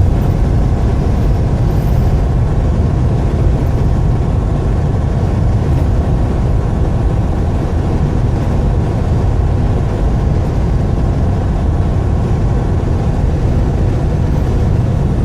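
Steady low rumble of a vehicle driving along, engine and road noise without change.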